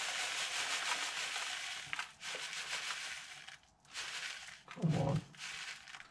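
Rolled oats pouring from a plastic bag into a plastic tub: a steady rustling hiss of falling flakes and crinkling bag, which breaks into short stop-start pours after about three and a half seconds. A brief low sound about five seconds in.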